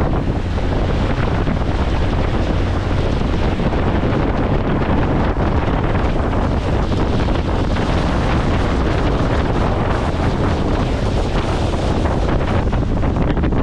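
Loud, steady wind buffeting the microphone aboard a small motorboat under way, with the boat's running noise underneath.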